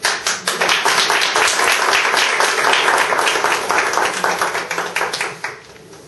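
A small group of people clapping: dense applause that starts at once, thins out toward the end and stops about five and a half seconds in.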